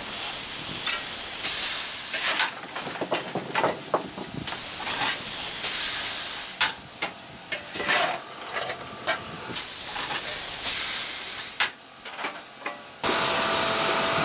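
Steam hissing loudly from a 1910 Baldwin steam locomotive, coming and going in spells of about two seconds. Between the spells come short clanks and scrapes from coal being shovelled into the firebox.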